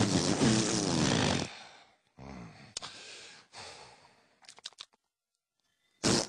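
Comic vocal sound effects of a cartoon animal: a loud breathy sound with a falling pitch that fades out about a second and a half in, then softer grunt-like sounds and a few short clicks. About a second of silence follows before the loud sound starts again near the end.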